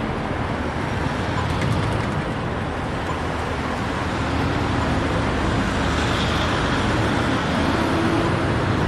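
City road traffic: a steady rush of passing vehicles, growing a little louder about halfway through.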